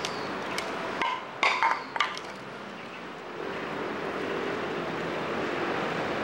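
A quick clatter of a few sharp knocks about a second and a half in, over steady outdoor background noise; a faint steady hum comes in about halfway through.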